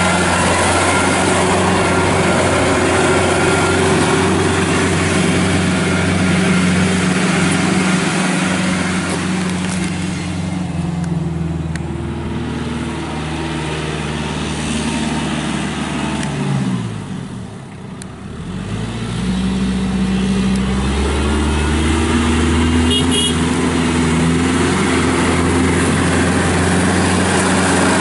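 2009 Kubota L4740 compact tractor's four-cylinder diesel engine running as the tractor drives. About two-thirds of the way through, the revs and level drop, then climb back up to a steady run.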